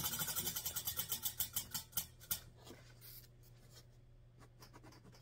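Prize wheel spinning down, its pointer clicking rapidly against the pegs. The clicks slow and spread out, ending in a few spaced clicks about two seconds in as the wheel comes to a stop.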